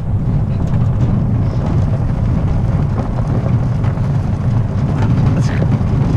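Steady low rumble and rattle of a dog-pulled wheeled rig rolling over a gravel road behind a running sled-dog team.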